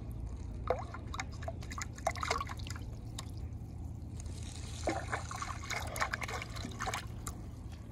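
Water splashing and dripping around a plastic bottle trap bobbing and tipping in shallow water, jerked about by a fish caught inside: a run of small irregular splashes and drips over a steady low hum.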